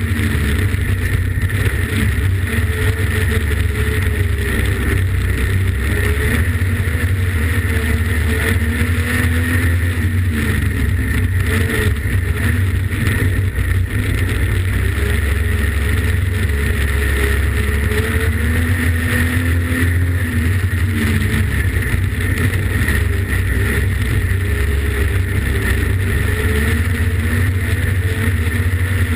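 Street stock race car's engine running hard, heard from inside the cockpit as a loud, heavy rumble, its revs rising and falling every few seconds through the laps.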